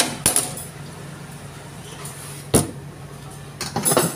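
Stirring food in a wok: a sharp clank of the utensil against the pan about a third of a second in and another just past halfway, then quick clattering and scraping near the end, over a steady low hum.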